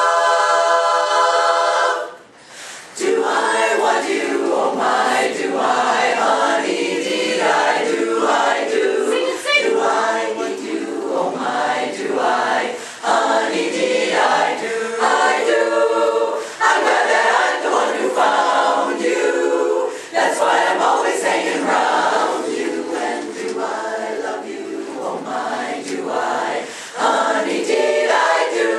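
Women's chorus singing in harmony. A held chord ends about two seconds in, and after a short break the singing carries on with moving parts.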